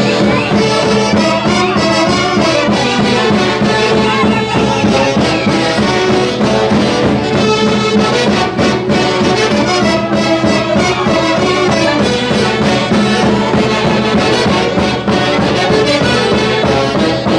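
Peruvian folk orchestra playing a Santiago tune, loud and continuous, led by brass.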